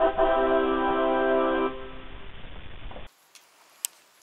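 A short musical jingle with a held chord, loud at first, then fading and cutting off abruptly about three seconds in. Faint background sound follows, with one sharp click.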